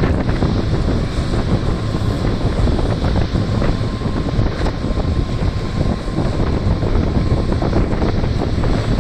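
Heavy mining machinery running steadily: the diesel engines of a Komatsu PC1250 excavator and HD785 dump truck at work, with wind buffeting the microphone.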